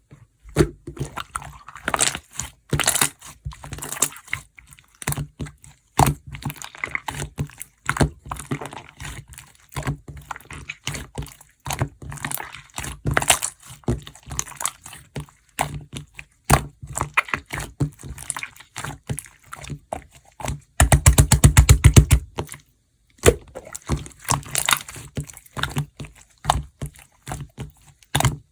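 Marbled slime being squished and kneaded by hand, giving wet squelches and many small crackling pops and clicks, with a dense run of rapid popping about two-thirds of the way through.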